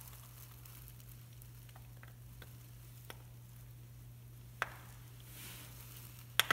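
Faint metal clicks and taps as a steel dust cap is fitted by hand onto the centre of a brake drum hub, over a steady low hum. The sharpest click comes near the end.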